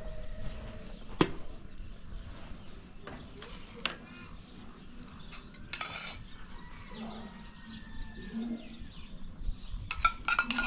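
Metal ladle and spoon clinking and scraping against a cooking pot and a small metal bowl while rice is scooped and served. There is one sharp clink about a second in, a few short scrapes in the middle, and a quick run of clinks near the end.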